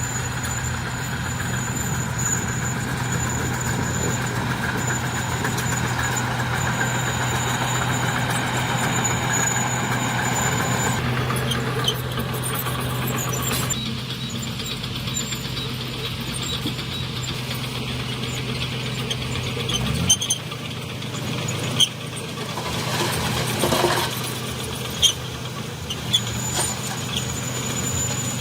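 Heavy construction machinery engine running steadily, with a thin high squeal that comes and goes and several sharp clanks in the last third.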